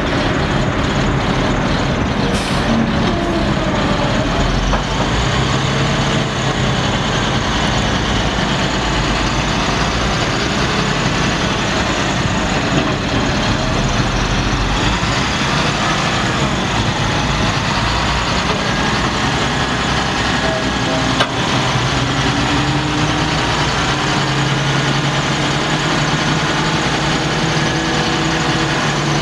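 Caterpillar 3126 inline-six turbo diesel of a Sterling LT7500 dump truck running steadily, with a single sharp click about two-thirds of the way through.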